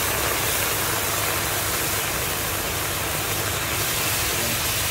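Loud, steady sizzling hiss of cream and sliced onions frying on a very hot flat griddle (tawa), with steam rising.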